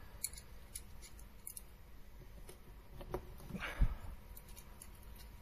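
Faint clicks and light handling noise of a small thrust bearing and steel washers being slid along a stainless feed screw, with a brief rustle and a soft bump a little before four seconds in.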